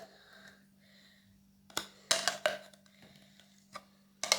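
A spoon clicking and scraping against the slime container in a few short, sharp strokes as slime is scooped out, starting about two seconds in.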